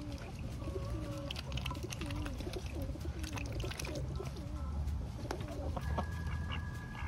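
Domestic poultry making a run of soft, low, warbling calls, several a second, with scattered clicks. A higher, steady call is held for about a second near the end.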